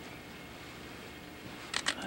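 Faint steady hiss, then two sharp clicks in quick succession near the end.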